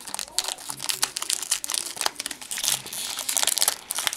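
Foil wrapper of a Pokémon trading card booster pack crinkling and tearing as it is pulled open by hand: a dense, irregular run of crackles.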